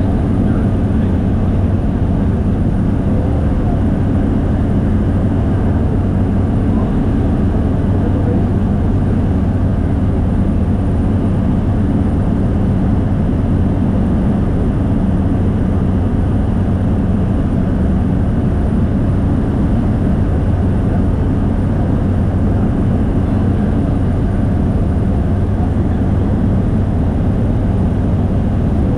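Propeller aircraft engine in flight, a loud steady drone with an even low hum that does not change.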